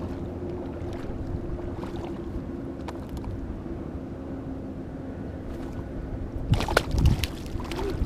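Wind buffeting the microphone over water, with a faint steady low hum. A quick cluster of sharp clicks comes about six and a half seconds in.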